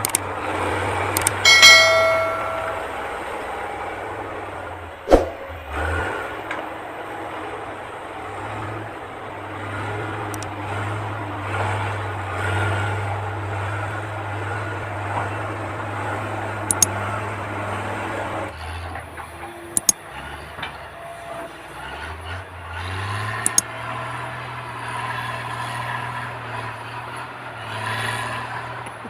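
Diesel engine of heavy earth-moving machinery running steadily under work, with scattered knocks. There is a short beep about two seconds in, and the engine note changes about two-thirds of the way through.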